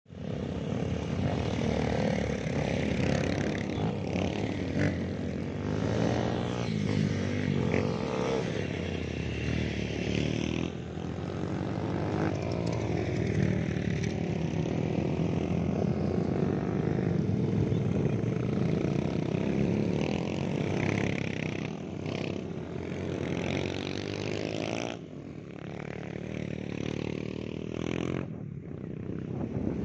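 Several dirt bikes riding past one after another, their engines revving and changing pitch as each goes by. The sound thins out about 25 seconds in as the last riders pass.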